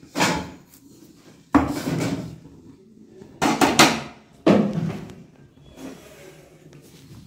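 Wooden rolling pin and rolling board being handled: a series of sharp knocks and scrapes that each fade quickly. One comes about a second and a half in, and several come close together around the middle.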